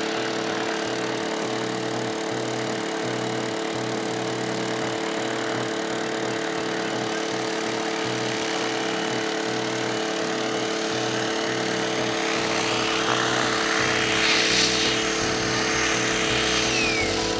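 Electric 700-class RC helicopter flying 3D aerobatics: a steady whine of motor and drivetrain under the whoosh of the main rotor blades. The sound swells about 14 seconds in as the helicopter comes down low and close.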